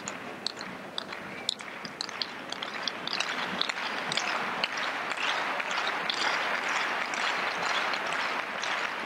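Tennis crowd applauding a point, a dense patter of hand claps that grows louder about three seconds in.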